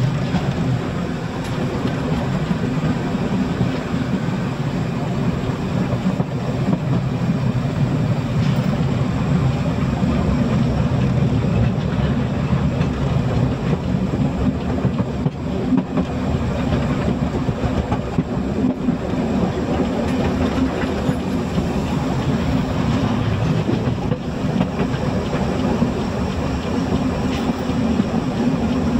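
Narrow-gauge steam train under way, running steadily at an even level.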